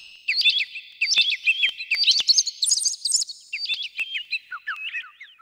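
Dawn birdsong sound effect: many small birds chirping in quick, overlapping short notes that sweep downward, growing sparser and lower and fading out near the end.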